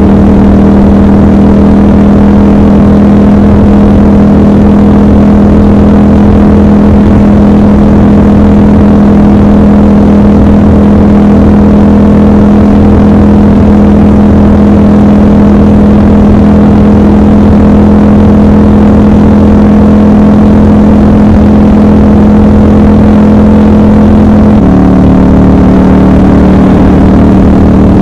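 Triumph Scrambler 1200 XC's 1200 cc parallel-twin engine running steadily at cruising speed, over a low rush of wind and road noise. Its note steps slightly lower near the end.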